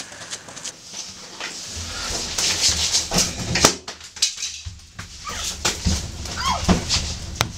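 A woman's muffled, whimpering cries through a hand clamped over her mouth, short rising and falling squeals among the knocks and rustling of a struggle.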